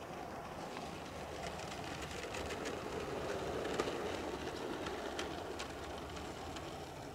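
Scale radio-controlled Su-35S model jet rolling out along the runway after landing. A steady rush swells as it passes, peaking about four seconds in, then fades, with scattered light clicks.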